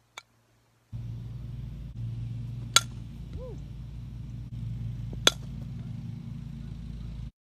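Softball bat hitting pitched balls: two sharp pings about two and a half seconds apart, each with a brief ring, over a steady low background rumble.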